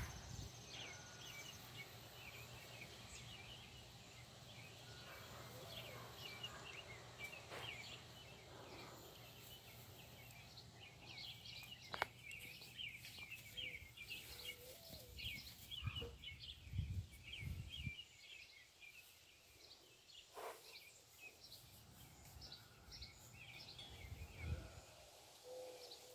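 Faint outdoor background with many small birds chirping irregularly, and a few low bumps now and then.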